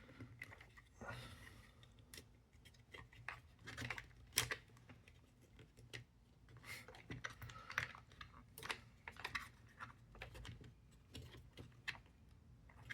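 Small pieces of a puzzle box being handled and pushed into place: irregular light clicks, taps and rattles, with a few sharper knocks about four and eight seconds in.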